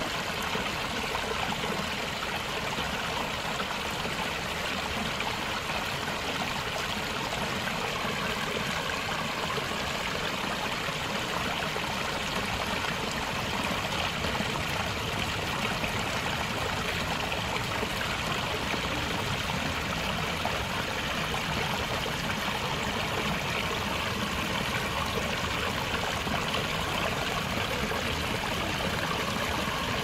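Small stream running steadily down a short rocky cascade, water trickling over stones.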